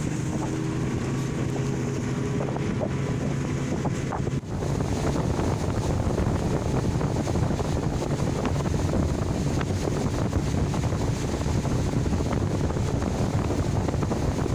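Motorboat engine running under way, with wind buffeting the microphone. About four and a half seconds in, the sound briefly dips, then grows louder and rougher, the engine note buried under wind and rushing water.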